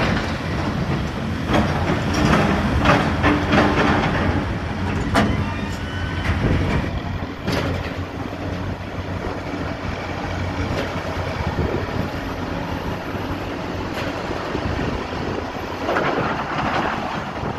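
Diesel engine of a heavy construction machine running steadily, with sharp metallic knocks and clanks, several of them in the first seven seconds.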